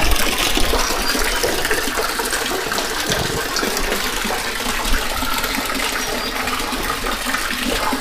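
Steady rush of water flowing in an open drainage ditch.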